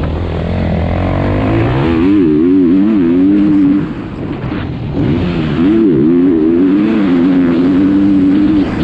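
Husqvarna FC 350's single-cylinder four-stroke motocross engine under hard throttle on a dirt track, pitch climbing then wavering as the rider works the throttle. It drops off sharply about four seconds in, comes back on a second later, and drops off again near the end.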